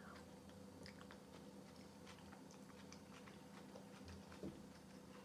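Faint chewing of a mouthful of cold beetroot soup with shredded beet, with small wet mouth clicks and a soft thump about four and a half seconds in.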